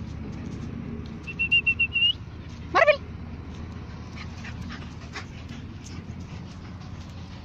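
Manchester terrier whimpering: a quick run of about six short, high whimpers that rise at the end, then one louder yelp falling steeply in pitch about three seconds in. A steady low rumble runs underneath.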